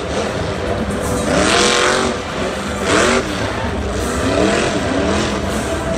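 Black Pearl monster truck's supercharged V8 engine revving hard, its pitch rising and falling several times, with sharp climbs about a second and a half in and again near three seconds.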